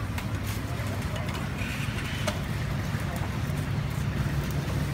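Busy street-market ambience: a motor vehicle engine running steadily beneath the background chatter of people's voices, with a few light clicks.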